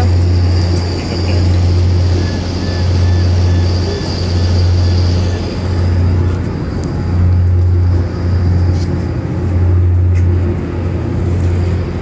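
Ferry's diesel engines running: a steady low drone that swells and dips in a slow, regular throb about once a second.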